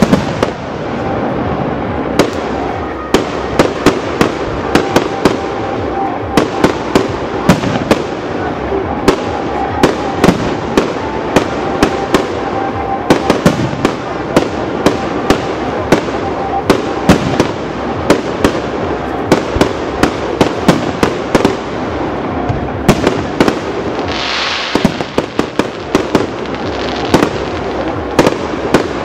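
Aerial fireworks shells launching and bursting in quick succession: a dense run of sharp bangs, several a second, over a continuous rumble of earlier bursts.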